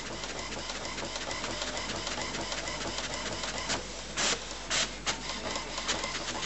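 HP Deskjet F4272 inkjet printer printing a page: the print carriage shuttles back and forth with a rapid ticking as the sheet is fed through. A few louder strokes come around four to five seconds in.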